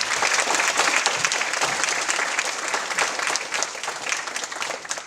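Audience of parents and children applauding, many hands clapping at once, tapering off near the end.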